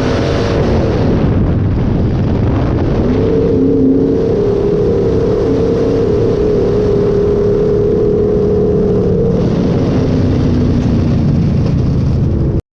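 Dirt-track sport mod's V8 engine at racing speed, heard on board: the engine note falls about a second in as the driver lifts, picks up again around three seconds and holds steady at high revs, then drops again near the end before the sound cuts off suddenly.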